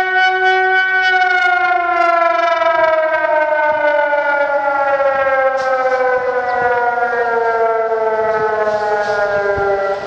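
San Francisco's pole-mounted tsunami warning siren sounding one loud tone. It holds steady for about a second, then slowly slides down in pitch as it winds down.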